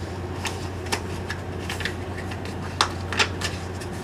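A picture book's paper pages being handled and turned: a series of short rustles and clicks, the sharpest about three seconds in, over a steady low hum.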